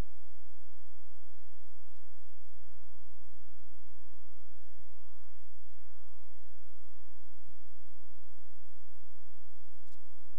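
Steady electrical hum with a buzzy edge, a strong low drone that holds unchanged throughout.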